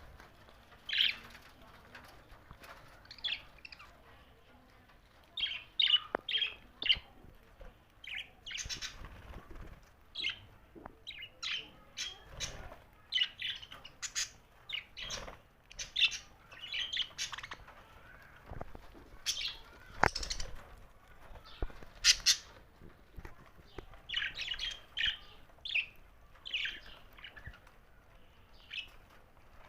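Pet budgerigars chirping and squawking in many short, irregular calls, with a few sharp clicks among them.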